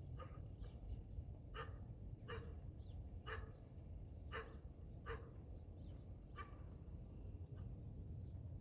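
A farm dog barking, about seven single barks at irregular intervals of roughly a second, over a steady low rumble.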